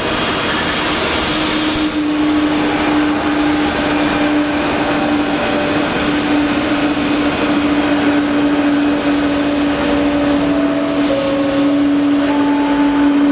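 Boeing 777-200's twin Pratt & Whitney PW4000 turbofans running on the landing roll-out: a steady jet-engine rumble with one held whine as the airliner rolls down the runway.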